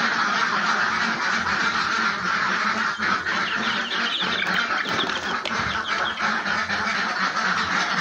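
A flock of laying ducks quacking in a dense, continuous chorus of many overlapping calls.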